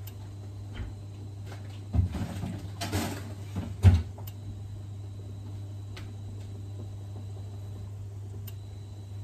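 A few knocks and clatters of kitchen things being handled, about two to four seconds in, the loudest near the end of that stretch, over a steady low hum.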